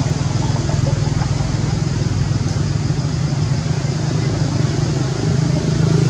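A steady low engine hum, a motor running evenly at idle.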